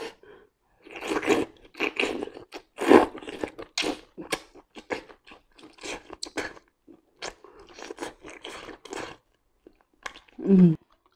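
Close-up chewing and biting of boiled octopus tentacle dipped in chili seafood sauce: irregular clicky mouth sounds throughout. A short vocal sound near the end.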